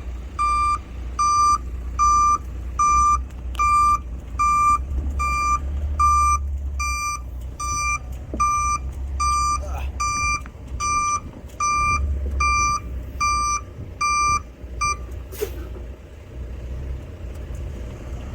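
Dump truck backing up: its backup alarm beeps steadily, about one beep every 0.7 seconds, over the low rumble of its diesel engine, which swells now and then. The beeping stops about fifteen seconds in as the truck halts.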